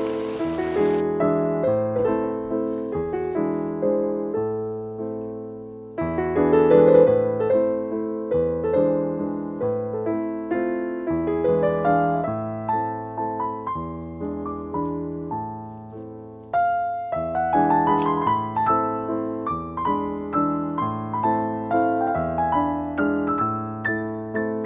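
Background piano music: a gentle melody over a steady bass line, with clear note attacks that fade out. Near the start a hiss like sizzling or rain runs underneath for about a second and cuts off.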